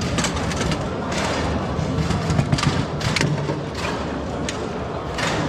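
Foosball play on a Bonzini table: sharp knocks at irregular intervals, about a dozen in all, as the ball is struck by the figures and hits the table, with rods rattling, over a steady low background din.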